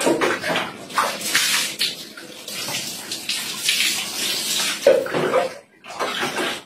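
Bucket bath: water scooped with a plastic dipper and poured over a person, splashing onto a tiled floor in several pours.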